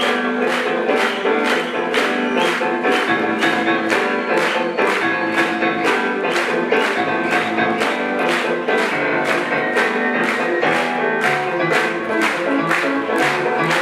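Jazz-fusion band playing live, with a full mix of keyboards and other instruments over a steady, quick drum beat.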